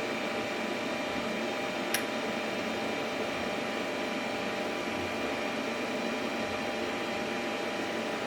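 Creality CR10 Max 3D printer's cooling fans running with a steady whirring hum, broken by a single sharp tick about two seconds in.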